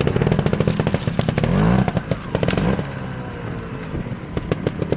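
Trials motorcycle engine running in quick firing pulses as the rider works through the section; the revs rise sharply about one and a half seconds in, then drop back to a lower, steadier run near three seconds.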